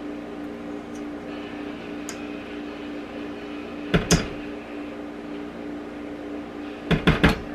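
A steady appliance hum, with a silicone spatula knocking against the rim of a stainless steel stand-mixer bowl while scraping batter off it: twice about four seconds in, and three quick knocks near the end.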